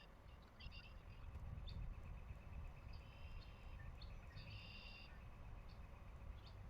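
Faint outdoor ambience: small birds giving several short, high, trilled calls, the longest about halfway through, over a low steady rumble.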